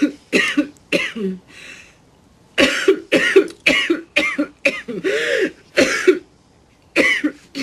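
A woman coughing in fits: three coughs, a pause of about a second, then a longer fit of about seven hacking coughs, one of them drawn out, and two more coughs near the end.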